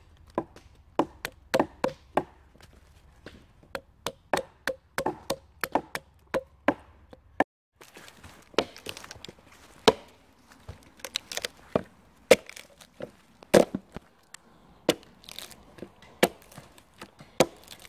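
Hand axe striking wood: a string of sharp knocks about two a second. Then a slower, uneven run of blows as the axe hews the flat face of a split log into a plank.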